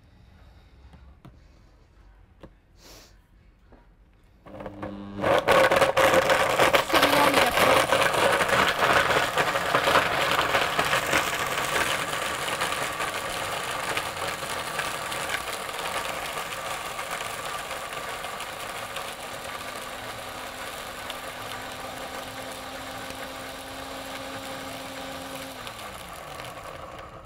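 Countertop blender switched on about four seconds in, chopping dry ingredients into coarse crumbs with a loud grinding noise. It is loudest at first and eases gradually, then the motor winds down with a falling hum near the end.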